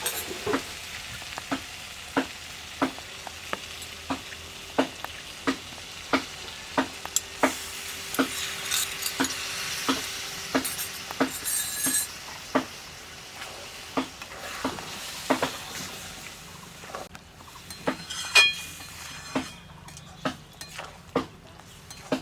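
A spatula stirring mushroom curry in a sizzling pan just after cashew paste and a little water have gone in, tapping against the pan about three times every two seconds. The sizzle dies down over the last few seconds.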